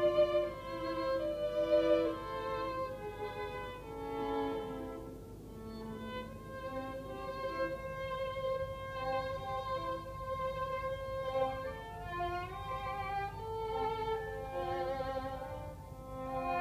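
Live duet of two bowed violin-family instruments, one holding a long note through the middle while the other plays a moving line around it.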